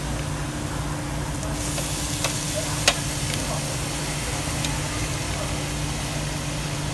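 Thin-sliced beef brisket sizzling on a hot stainless-steel tabletop grill, the hiss starting about a second and a half in. Metal tongs click sharply against the grill a few times, loudest about three seconds in, over a steady low hum.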